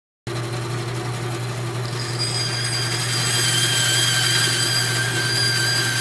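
Small power tool or machine motor running steadily at speed, with a low hum and a high whine that comes in about two seconds in and grows slightly louder. It starts suddenly.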